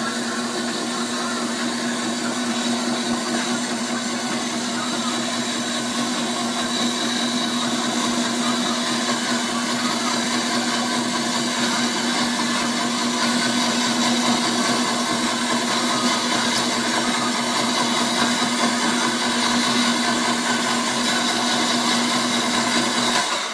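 Snow ice shaving machine running steadily, its electric motor humming under a broad hiss. It stops suddenly at the end.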